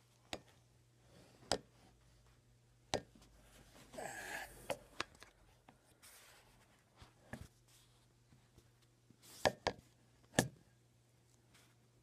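Handling noises: about ten scattered sharp clicks and knocks, the loudest two near the end, with a short rustle about four seconds in.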